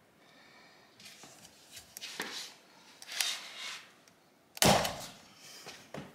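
Long breaker bar and ratchet straining on the T50 Torx steering-wheel bolt: faint creaks and clicks, then a loud sudden bang about four and a half seconds in, with a smaller knock near the end. The bang is typical of the tight steering-wheel bolt giving way.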